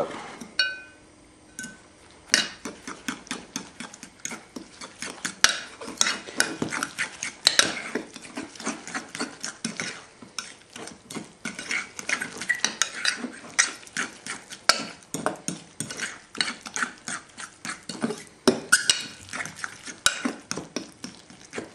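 Metal spoon stirring a wet tuna burger mixture in a mixing bowl, a quick, uneven run of clinks and scrapes against the bowl that starts about two seconds in and keeps going, several a second.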